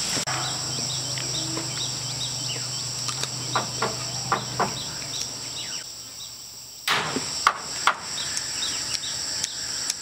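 Steady high-pitched insect buzz with many short repeated chirps, broken by several sharp knocks; the loudest knock comes about seven seconds in, followed by two more. A low hum underneath stops about halfway through.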